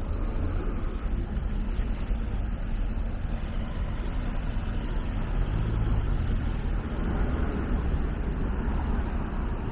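Road traffic: cars driving past close by, a steady rumble of engines and tyres on the road.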